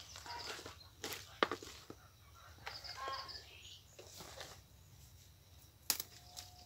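Leafy greens being picked by hand into a plastic basin: a few sharp snaps of stalks breaking among rustling leaves. Small birds chirp faintly in the background.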